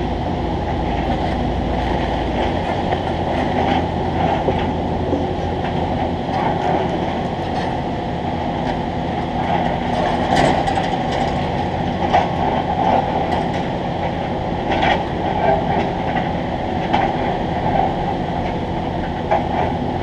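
Steady machine rumble from construction equipment, with scattered sharp metal clicks and knocks.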